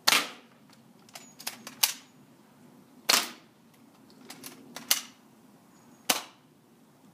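A&K SVD Dragunov airsoft rifle firing three single shots about three seconds apart, each a sharp crack with a short tail. Fainter sharp clicks come in between the shots.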